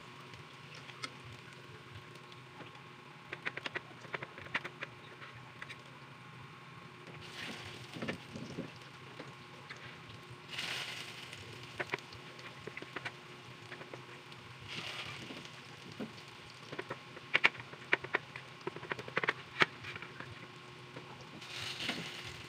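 Malunggay (moringa) patties frying in shallow oil in a pan: a steady sizzle with many scattered pops and crackles, thickest about three-quarters of the way through.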